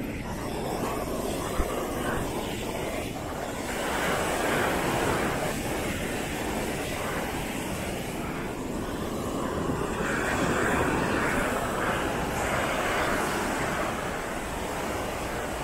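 Sea waves breaking and washing on the shore, the surf swelling twice, about four and ten seconds in.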